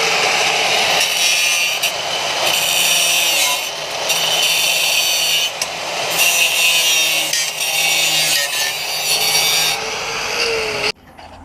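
Power tool cutting through a titanium exhaust tip: a steady, loud grinding and rasping over a motor whine. Near the end the motor winds down and the sound stops abruptly.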